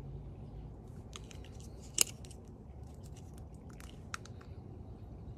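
Faint clicks and crackles of small plastic wax melt sample cups being handled, with one sharper click about two seconds in.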